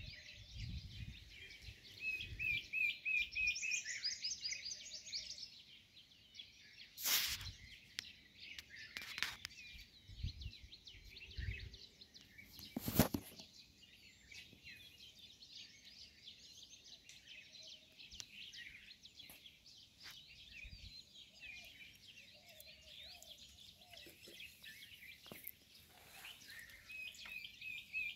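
Several small birds chirping and calling continuously in scrub woodland, with a rapid repeated trill a couple of seconds in and again near the end. Two sharp knocks interrupt, about seven and thirteen seconds in, and there are low rumbles in the first few seconds.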